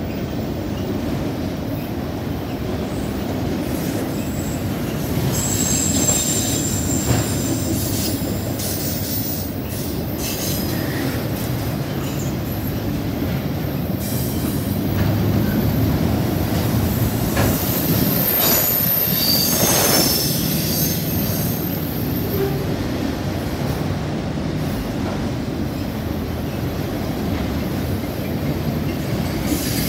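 CSX freight train of autorack cars rolling past at close range: a steady rumble of steel wheels on the rails, with high-pitched wheel squeals coming and going.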